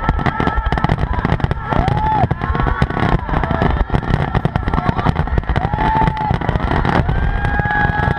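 Fireworks display: a dense run of rapid crackling pops and bangs over a continuous low rumble, with a few short pitched tones that rise and fall, one held for about two seconds near the end.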